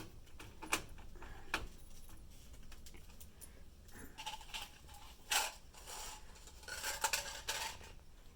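Scattered metallic clicks and clinks of a screwdriver and small screws against a metal PC case and motherboard standoffs, with a few short rings of metal, busiest about five and seven seconds in.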